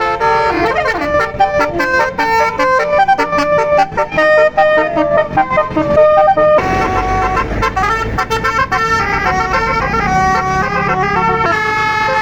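Tour bus 'basuri' telolet horn playing fast melodic tunes of short, stacked air-horn notes. About six and a half seconds in, the background changes suddenly to a low engine rumble and another horn tune plays over it.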